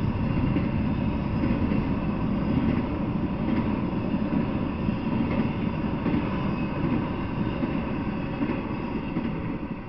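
Freight train cars (double-stack container well cars and flatcars) rolling past on the rails: a steady rumble of steel wheels on track that fades a little near the end as the last car goes by.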